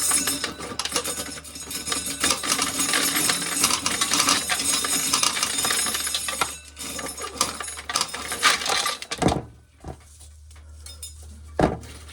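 Dried corn kernels being shelled and falling into a metal coffee can: a dense clicking rattle that thins to a few scattered clicks about nine seconds in.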